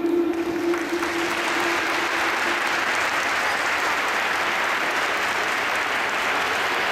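Audience applauding steadily. The last held note of the program music fades out in the first two seconds or so.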